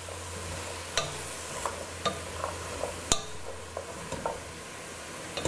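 Chopped vegetables sizzling in oil in a copper pot as a spoon stirs them, with small scraping ticks and two sharp clinks of the spoon on the pot, about a second in and about three seconds in.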